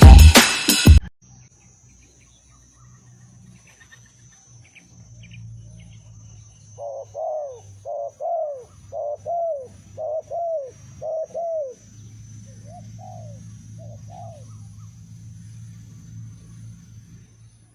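Spotted dove (tekukur) cooing: a run of about ten quick, arched coos, then three softer ones, over a faint steady high whine and a low hum. A music intro cuts off about a second in.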